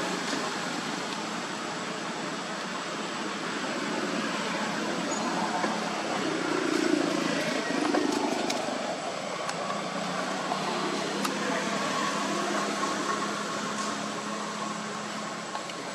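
Steady outdoor background noise: an even hiss with a thin high tone running through it and a few faint clicks.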